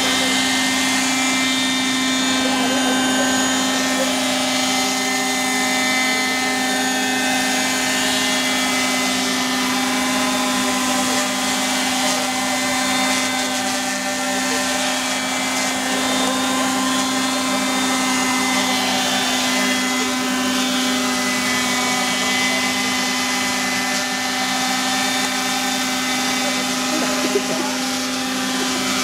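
Radio-controlled Hirobo JetRanger model helicopter hovering: its engine and rotor give a steady, even-pitched whine that holds the same note. A brief click sounds near the end.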